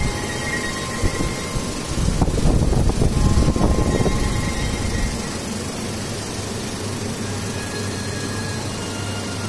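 Steady machine hum and fan noise from a Cinesales cinema projector with its mains power on. A louder, rough rumble joins it from about two to five seconds in.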